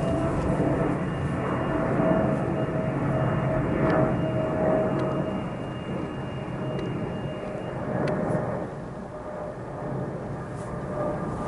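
Boeing 777-300ER's twin GE90 turbofan engines rumbling at climb power as the airliner passes overhead, with a steady whine running through the rumble. The sound slowly fades as the jet climbs away.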